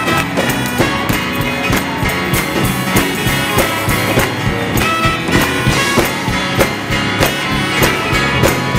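Live gospel band playing an instrumental passage with a steady beat of drum strokes.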